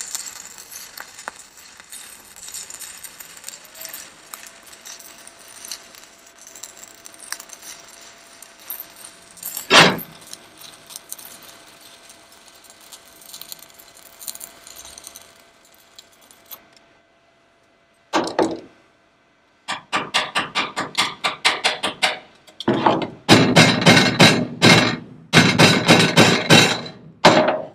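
Stick (SMAW) welding with a 7018 rod on the steel patch plate of a dump truck bed: the arc's steady crackling sizzle, with one loud pop about ten seconds in. After a short pause, a run of rapid metal-on-metal hammer strikes on the steel plate, tacking the patch and beating it down.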